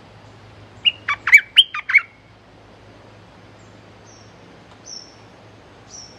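Stripe-throated bulbul singing: a quick, loud phrase of about six clear, bubbly notes about a second in. A few faint, short, high chirps follow later.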